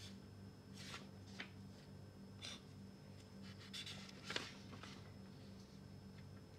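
Faint scratching of a pen writing on paper, in a few short strokes, over a low steady electrical hum.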